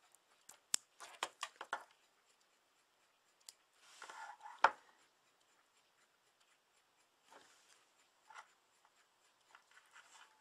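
Handling noise from small objects: scattered sharp clicks and taps, a cluster in the first two seconds, then a rustle ending in a louder knock about four and a half seconds in, and a few faint ticks after.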